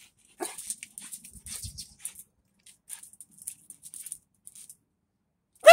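Small dog whimpering in short bursts as it waits for its ball, then one loud, high yip at the very end.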